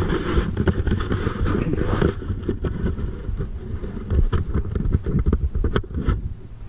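Camera handling noise: an irregular low rumble and rubbing on the microphone as the handheld camera is moved about, with scattered knocks and clicks.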